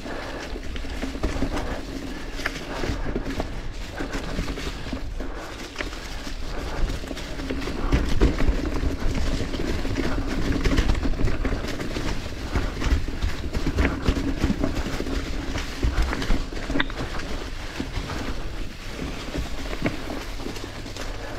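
Mountain bike descending a technical trail over rocks, roots and fallen leaves: the tyres roll and crunch over the ground, with frequent knocks and rattles from the bike over bumps.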